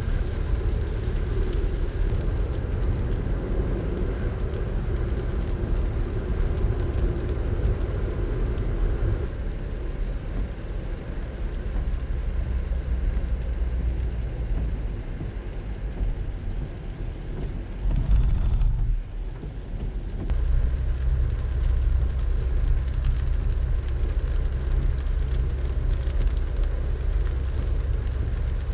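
Car interior noise while driving on a wet road in rain: steady low road and engine rumble with tyre hiss and rain on the windshield. A brief louder low rumble comes about two-thirds of the way in.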